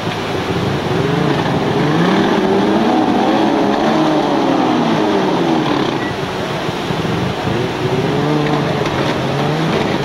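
An engine revving up and back down twice, its pitch rising and falling over a few seconds each time, over the steady rush of river water.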